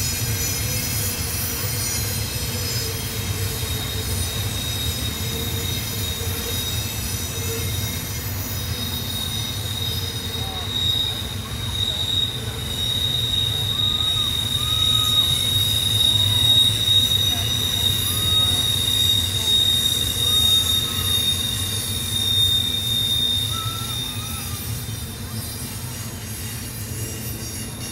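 Freight train passing on a tight curve, its wheels squealing steadily against the rail over the low rumble of the rolling cars. The squeal is loudest around the middle and eases off near the end.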